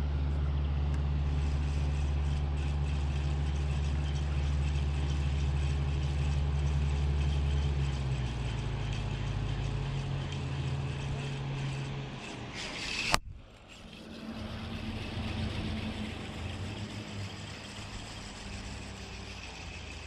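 A motor's steady low drone that fades away from about eight seconds in. About thirteen seconds in there is a short swish ending in a sharp click.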